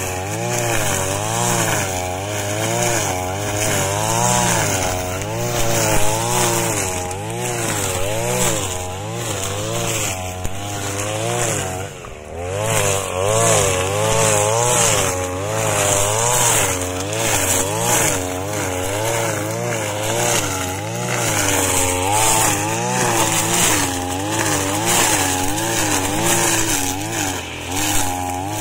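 Ryobi MX143R backpack brush cutter's 41.5 cc engine running at high speed, its nylon line cutting tall grass and weeds. The engine pitch wavers up and down every second or so under the cutting load, with a brief dip about twelve seconds in.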